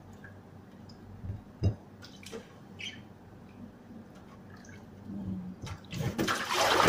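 Hands swishing grapes in a plastic basin of water, with small splashes and drips. About six seconds in, the basin is tipped and a loud rush of water pours into the stainless steel sink.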